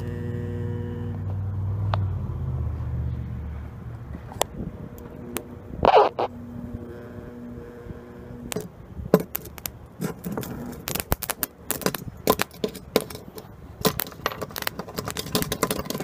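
Microwave-oven transformer rewound for high current, humming under load as its clamp jaws heat a metal strip, the hum easing off after about four seconds. A loud short crackle comes about six seconds in, and from a little past halfway the metal arcs and sparks with rapid crackling and snapping.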